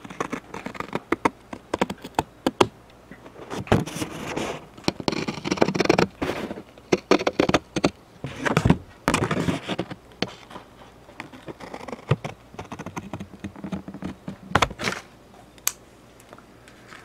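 A cardboard Funko Pop box being pulled apart by hand, the glued side panel coming away from the back panel: irregular crackling, scraping and sharp clicks of the cardboard.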